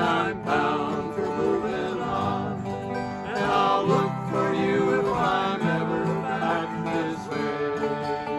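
Acoustic country-folk music, with guitar and other plucked strings playing on steadily.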